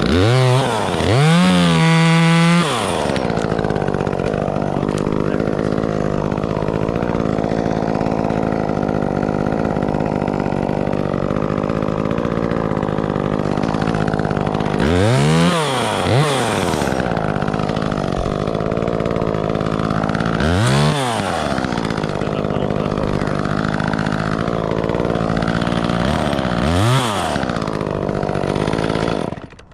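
Two-stroke chainsaw revved up hard at the start, then running steadily at high speed, as in a cut through wood; the engine speed drops and climbs back about three times, and the saw stops near the end.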